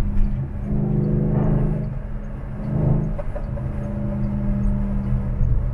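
Car engine and road rumble heard from inside the cabin while driving on a highway, the engine note swelling twice, about a second in and again near three seconds, as the car accelerates.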